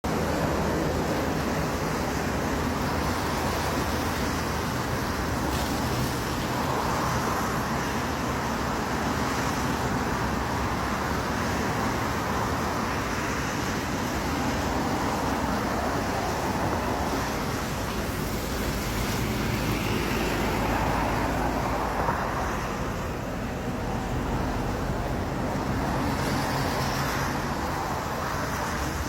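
Steady road noise with a vehicle engine running, such as a bus on the road among traffic.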